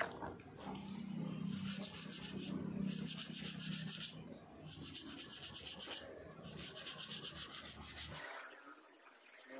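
Wet scrubbing of a plastic cordless drill housing with a stiff brush in a tray of water: quick, rhythmic brushing strokes in three bouts, with short breaks about four and six seconds in.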